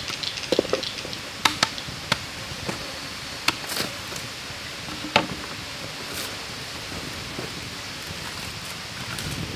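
A handful of sharp knocks and clicks from a cut bamboo tube being handled and set down beside a small wood fire, the loudest knock about five seconds in, over a steady hiss.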